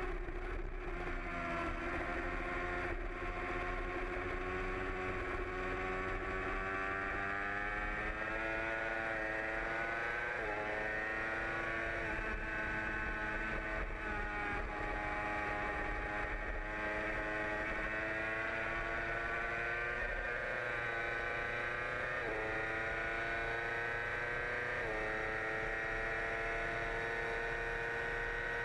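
Yamaha YZF-R6 sport bike's 600 cc inline-four under race load, heard onboard: engine pitch drops at first, then climbs steadily as the throttle opens through a long corner and down the straight, with brief dips in pitch at a few upshifts.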